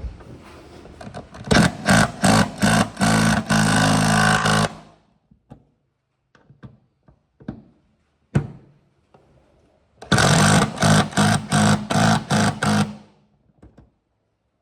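A cordless power driver runs in two bursts of about three seconds each, the trigger pulsed in quick spurts while it drives the bolts into the mount's rivet nuts. Small clicks and knocks of handling the parts fall in between.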